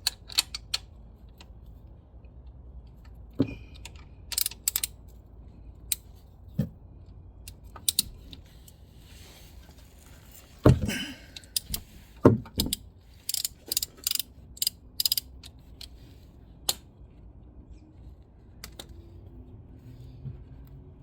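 Ratchet wrench clicking and metal tool clinks while loosening the oil pan's drain plug: scattered single clicks with runs of quick ratchet clicks.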